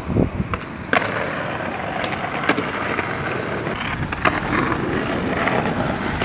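Skateboard wheels rolling over pavement, a steady rolling noise, with a sharp clack about a second in and a few lighter clicks later.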